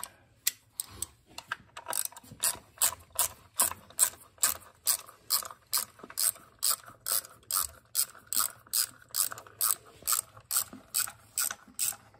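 Hand ratchet clicking in a steady rhythm, about two to three clicks a second, as it backs a bolt out of a 700R4 transmission's valve body.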